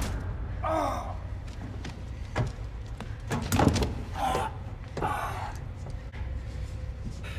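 Action-film fight sounds: a man's strained grunts and heavy breaths with a few sharp knocks and thuds, over a steady low mechanical hum.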